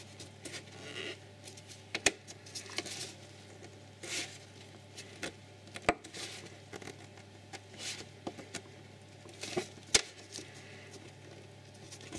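Rubber concertina air intake hose of an Audi RS6 (C5) being worked side to side off the airbox by gloved hands: scattered rubbing and scraping with a few sharp clicks, about three louder than the rest.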